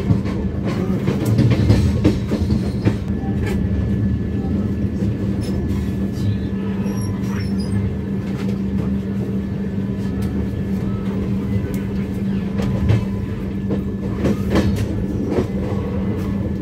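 Duronto Express passenger train running at speed, heard from inside the coach: a steady low rumble with a constant hum and a few sharp knocks.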